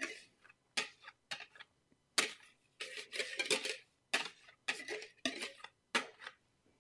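Orange plastic mixing bowl knocking and scraping against a stainless steel mixing bowl as shredded cabbage in batter is tipped out of it: a string of irregular short clatters and knocks.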